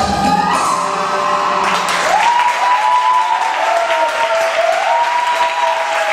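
Percussion-led dance music with tambourine ends in the first second or two, then the audience applauds, with several high cheering calls that rise and hold over the clapping.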